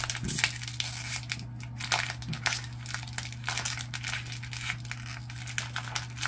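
Small plastic Oreo cookie wrapper crinkling as it is pulled open by hand, a run of irregular small crackles.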